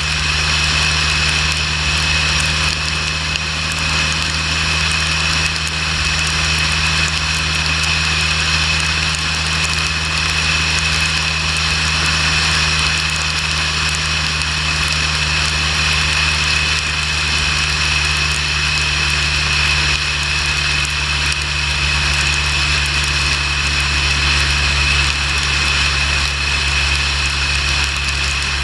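Motorcycle riding steadily at highway speed: a constant low engine drone under loud rushing wind and road noise, holding even without any change in speed.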